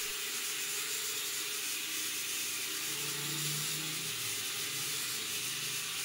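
Mini toy quadcopter's small motors and propellers whirring as it hovers and manoeuvres, a steady hiss with a faint hum that swells briefly about three seconds in.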